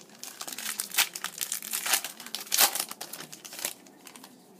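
Foil wrapper of a sports card pack crinkling and tearing as it is opened by hand, in a run of crackles that stops about three and a half seconds in.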